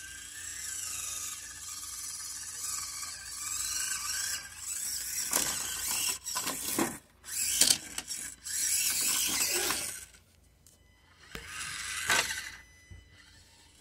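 Small electric RC car's motor and gears whining as it drives. The whine is steady at first, then comes in short stop-start bursts, pauses, and returns for one last burst near the end.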